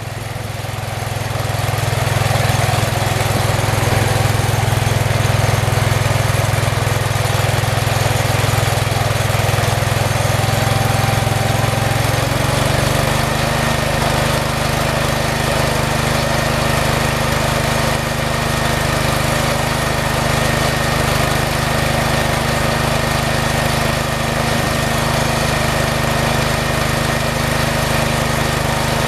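Small garden-tractor engine running steadily. It gets louder over the first couple of seconds and changes engine speed about twelve seconds in.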